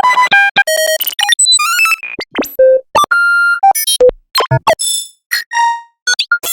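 A rapid string of assorted short electronic beeps and synthesized sound effects, one after another: tones of different pitches, chirps and pitch glides. One steady beep is held for about half a second near the middle.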